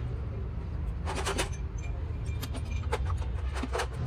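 A steady low mechanical rumble with a series of short, sharp clicks or knocks: a cluster about a second in, then several more between about two and a half and four seconds in.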